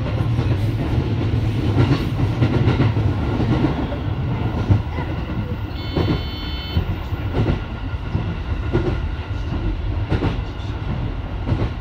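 JR 205 series electric commuter train running at speed, heard from inside the front car: a steady low rumble with the clickety-clack of the wheels over rail joints at irregular intervals. A brief high-pitched tone sounds for about a second around six seconds in.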